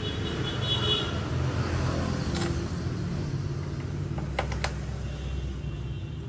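Steady low rumble, with a few sharp clicks about two and a half and four and a half seconds in as the knobs on a Guinness SPA-306 karaoke mixing amplifier are turned by hand.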